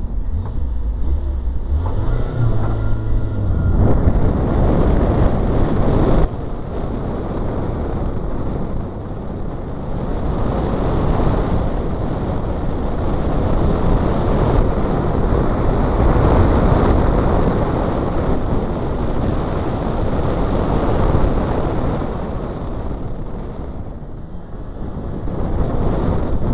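Nissan Micra K11's engine revving up, then driven hard around a coned course, with a sudden drop in level about six seconds in. Heavy wind buffeting and road noise on the microphone cover much of the engine.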